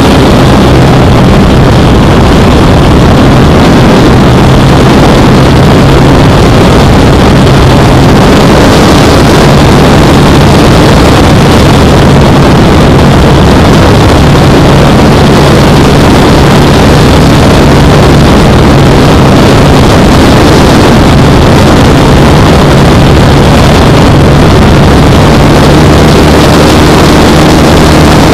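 Onboard sound of a Starmax P-51 Mustang RC model plane in flight: its motor and propeller running steadily with wind rushing over the mounted camera's microphone, very loud and distorted. The low hum shifts in pitch now and then as the throttle changes.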